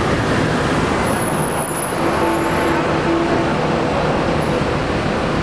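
Steady road noise from a city street heard from the open top deck of a sightseeing bus: the bus's engine and tyres with surrounding traffic, a dense, even rumble.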